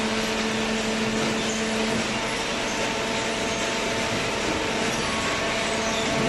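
Industrial cardboard baler running: a steady mechanical drone with a constant hum.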